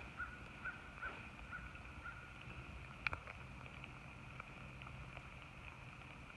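Faint chirping animal call repeated about two to three times a second, fading out about two seconds in, over a steady high drone and the light hiss of rain on the pond. A single sharp click about three seconds in.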